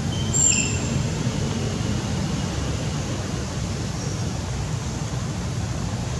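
Steady low rumble with an even hiss over it, outdoor background noise with no clear source, and a brief high chirp about half a second in.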